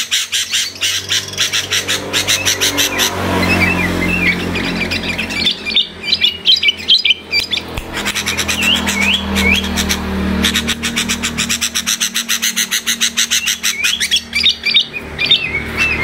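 Small songbird calling: fast runs of harsh, rapidly repeated notes at the start and again near the end, with short warbled whistles in between. A low steady hum runs underneath.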